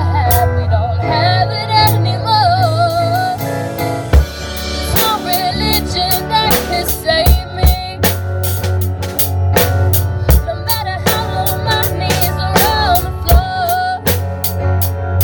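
A live band playing a pop cover with a lead singer over bass and keyboard or guitar; the drum kit comes in about four seconds in and keeps a steady beat of snare, kick and cymbal hits.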